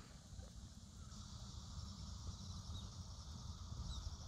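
Faint, steady chorus of insects in a summer rice paddy: a high continuous trilling over a low rumble, with two faint short high chirps in the second half.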